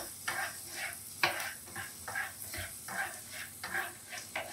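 Wooden spatula stirring chopped garlic around a nonstick frying pan in warm butter and olive oil, with short scraping strokes about three a second over a gentle sizzle.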